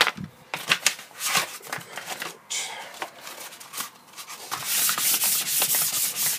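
Fine-grit sandpaper (600 grit) rubbed by hand over a carved pine board. A few scattered scrapes and knocks at first, then from about four and a half seconds in, quick, steady back-and-forth sanding strokes.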